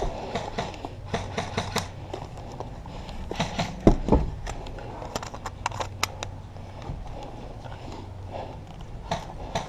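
Irregular sharp clicks and knocks over a low rumble, with two louder thumps about four seconds in.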